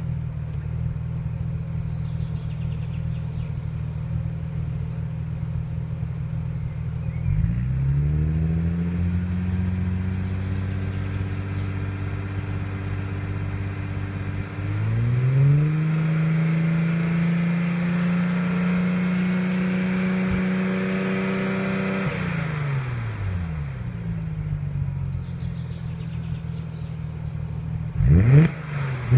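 Audi RS4 B5's 2.7-litre twin-turbo V6 exhaust, with the primary catalytic converters and centre silencer removed, idling. About seven seconds in the revs are raised and held for some fifteen seconds, dipping briefly partway, then drop back to idle; a few quick rev blips come near the end.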